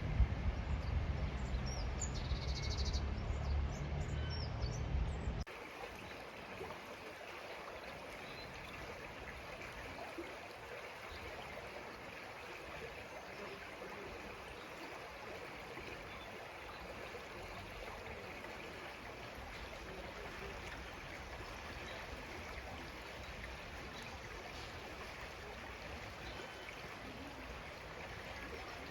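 A stream flowing, a steady rushing of water. For the first five seconds a loud low rumble sits over it, with a few short bird chirps, and the rumble cuts off abruptly.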